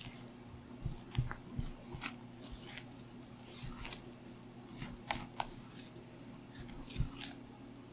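Spatula folding and scraping thick pound cake batter in a glass bowl, with flour still being worked in: irregular soft wet squelches and scrapes, with a few light knocks against the bowl. A steady low hum sits underneath.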